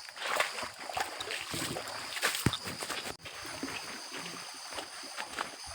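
Irregular rustling and crackling of leaves and twigs, with one sharper click about halfway through, over a steady high hiss.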